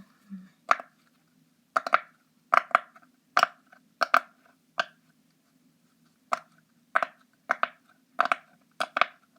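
Square Pop-It fidget on its clicky side being pressed: a string of sharp, irregular clicks as the bubbles pop through, several coming in quick pairs.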